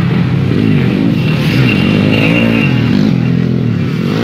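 Dirt bikes racing on a grasstrack, several motorcycle engines revving hard, their pitch repeatedly rising and falling.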